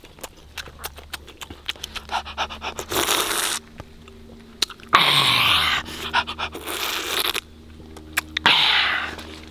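Close-up mouth sounds of eating roasted chicken: wet chewing and lip-smacking clicks, broken four times by a loud, noisy sucking breath lasting about half a second to a second.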